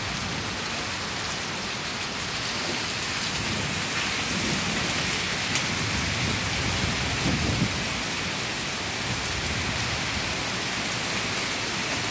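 Heavy thunderstorm rain coming down good, a steady even hiss, with a low rumble swelling and fading in the middle.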